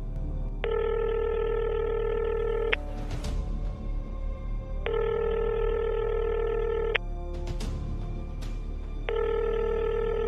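Telephone ringback tone as a call is placed: three steady two-second tones about two seconds apart, over quiet background music, just before the call is answered.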